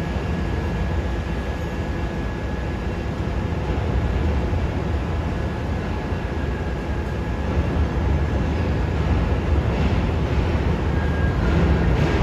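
New York City subway Q train pulling slowly into the station, a steady rumble of wheels on the rails that grows gradually louder as it comes closer. A faint high squeal comes in near the end.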